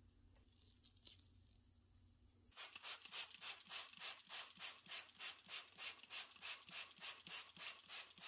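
A white pad scrubbed back and forth over a wet chrome-plated iron head, in even strokes about three a second that start about two and a half seconds in.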